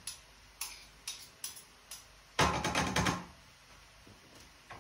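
Kitchen utensils and containers knocking on the counter: a few light taps, then a louder clatter lasting under a second about halfway through.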